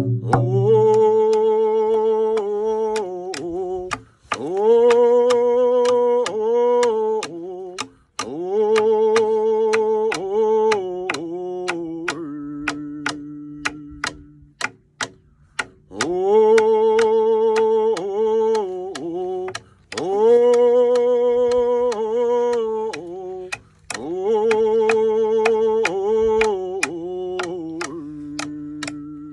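Frame hand drums struck with beaters in a steady beat, about two strikes a second, under singing in long phrases with held, wavering notes and short breaths between them.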